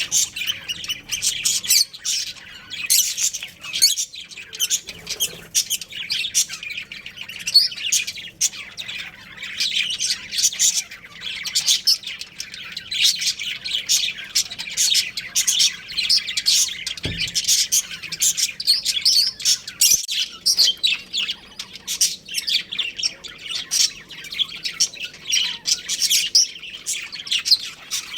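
Budgerigars chirping and chattering without pause, several birds at once, with many rapid overlapping high chirps.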